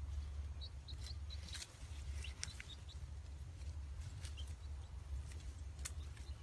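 Short, high bird chirps, a quick run of them in the first couple of seconds, over a steady low rumble and scattered clicks.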